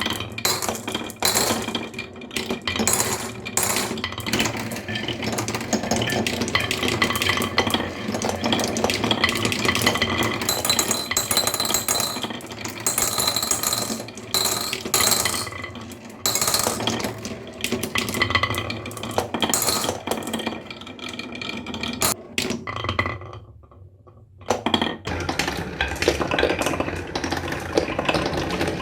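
Steady clinking and clattering of small hard objects knocking together, with short ringing tones, broken by a brief lull about 23 seconds in.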